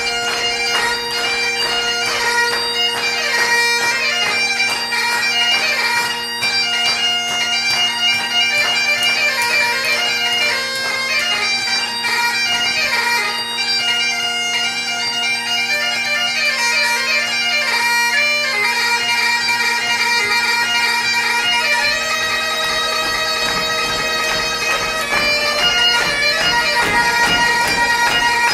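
Great Highland bagpipe played solo: steady drones sound under a quickly changing chanter melody.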